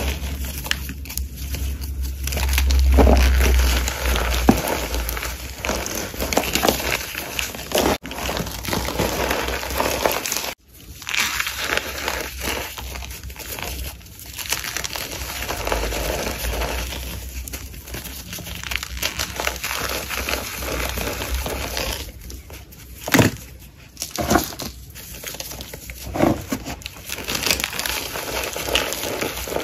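Soft gym chalk and cornstarch being crushed: a dense run of crunchy, powdery crackling, with a few brief breaks and a sharper crack a little past two-thirds of the way through.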